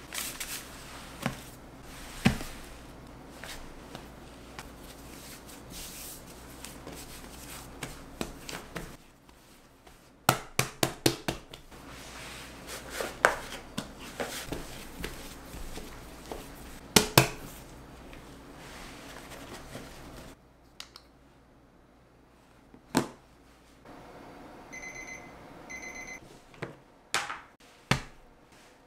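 Kitchen worktop handling sounds as whole wheat bread dough is divided with a bench scraper: scattered sharp knocks, taps and scrapes on the counter, with a plastic tub being handled. Near the end there are two short electronic beeps.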